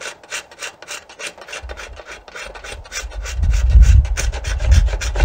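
Hand scraper drawn in quick repeated strokes along the back of an Osage orange bow stave, about three strokes a second, shaving off the early wood around a knot down to the chosen growth ring. A low rumble builds in the second half and is the loudest thing there.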